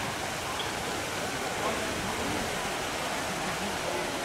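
Trevi Fountain's cascades rushing steadily over the rocks into the basin, with the babble of a large crowd talking beneath it.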